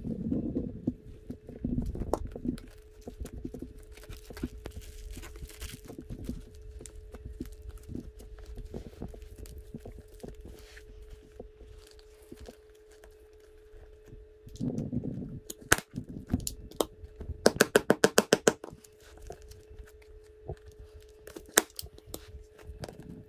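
Hand reupholstery work on a motorcycle seat: scattered sharp clicks and knocks from tools and handling. About three quarters of the way through comes a quick run of about ten taps, over a faint steady hum.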